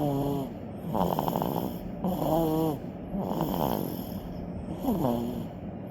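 A 100-day-old baby snoring: about five snoring breaths, roughly one a second. Several of them carry a wavering squeaky tone.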